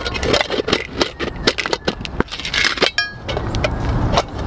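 Metal camp cookware and tin cans clinking and rattling as they are handled and packed, with one short metallic ring about three seconds in. A low rumble builds near the end.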